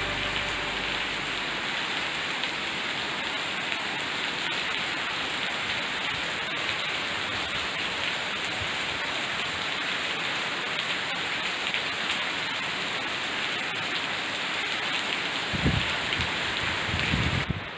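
Steady rain falling and pattering on leaves and wet paving, a continuous even hiss. A few low rumbles come in near the end.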